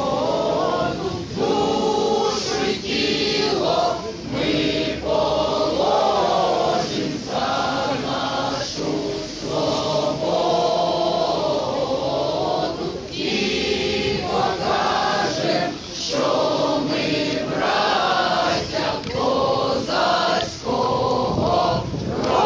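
A crowd singing a song together, many voices in unison, in phrases broken by short pauses for breath.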